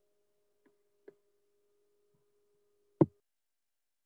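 Gated silence on a video-call audio line with a faint steady tone, two soft clicks about a second in, and a sharper, louder click about three seconds in, just before the tone stops.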